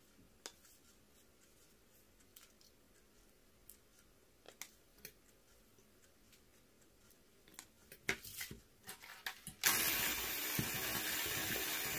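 A few light clicks and knocks, then, near the end, an electric hand mixer switches on and runs steadily. Its beaters are churning whipped cream that has already broken into butter grains and buttermilk. The mixer cuts off suddenly.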